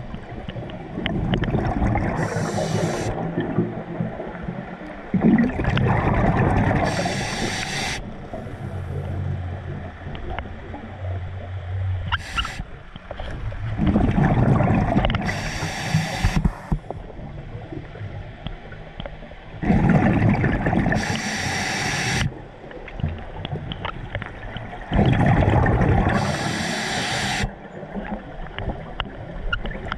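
A scuba diver breathing underwater through the regulator: five bursts of rumbling exhaled bubbles with a hiss, about every five to six seconds.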